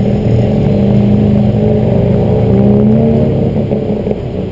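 Tuk-tuk engine running as it drives in traffic, its pitch rising as it speeds up and then easing off after about three seconds.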